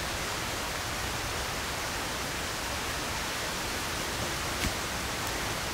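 Steady, even rushing noise with no distinct events, apart from a single faint click about four and a half seconds in.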